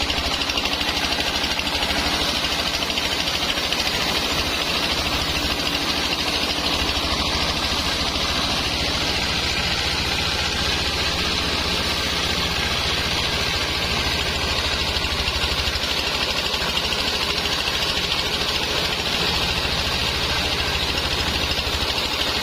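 Sawmill machinery running steadily: the circular saw rig gives an even mechanical drone with a constant hiss higher up, unchanging throughout.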